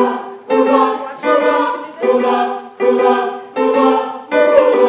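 A group of voices singing together in short held chords, one after another about every second, the last one held longer.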